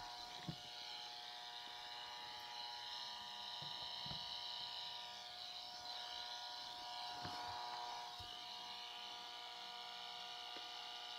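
A Greenwave broadband EMI meter's speaker giving a faint, steady buzz of several held tones with hiss. This is its audible rendering of high-frequency noise ('dirty electricity') on the household wiring, and it stays unchanged with a plug-in noise filter connected. A few faint knocks come from handling at the outlet.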